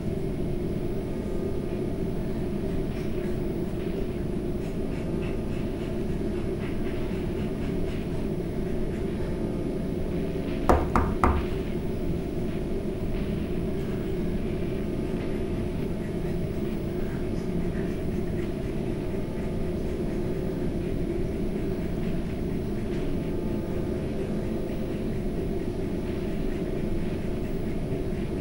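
A steady low rumbling drone, with three sharp knocks in quick succession about eleven seconds in.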